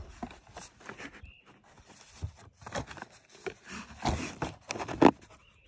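Cardboard box of shotgun shells being handled and turned over in the hand: irregular rustling and scraping, busiest about four seconds in, with a sharp knock about five seconds in.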